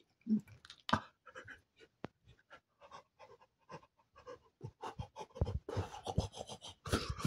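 A man's breathing and mouth noises close to the microphone: short, irregular puffs and clicks, sparse at first and coming thicker in the last couple of seconds.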